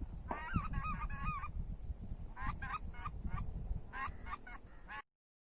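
Acrylic goose call blown in quick runs of short honks, each note breaking sharply upward in pitch, grouped with brief pauses, over a low wind rumble. The sound cuts off abruptly near the end.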